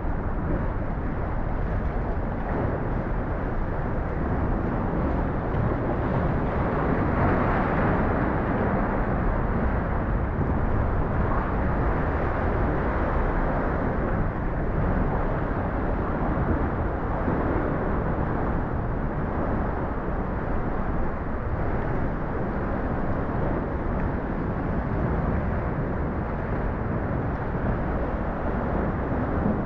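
Steady rushing noise of wind and sea water around a kayak, mostly low and deep, swelling a little about seven seconds in.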